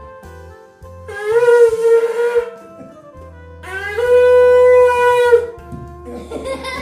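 Conch shell (shankh) blown in two long blasts, each a steady horn-like tone lasting over a second, sliding up briefly as it starts.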